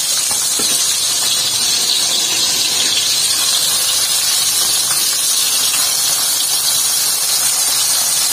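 Small river fish (wader and uceng) deep-frying in hot oil in a wok: a steady sizzle of bubbling oil.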